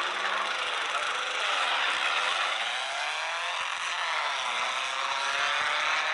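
Racing car engines revving and passing, several overlapping at once, their pitch sliding up and down throughout.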